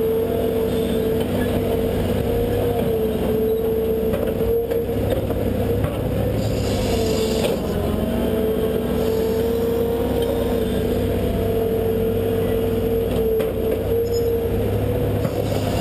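Excavator working a trench: its diesel engine runs steadily under load, with a steady whine on top that wavers slightly as the boom and bucket move, and a brief hiss about seven seconds in.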